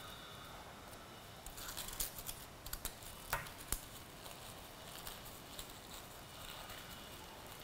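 Faint crinkling and ticking of wafer paper rose petals being pressed and shaped between the fingers, busiest in the first half, with two sharper clicks about three and a half seconds in.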